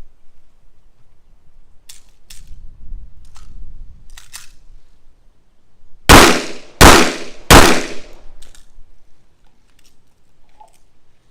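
Three gunshots fired in quick succession, a bit under a second apart, each followed by a short ring-out. A few faint sharp clicks come in the seconds before.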